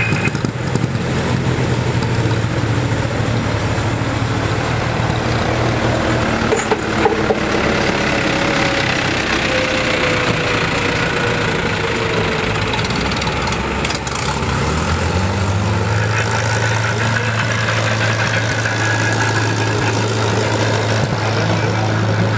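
Farm tractor engines running at idle, with a tractor driving close past and away down the track. About 15 seconds in, one engine's pitch rises a little and then holds steady.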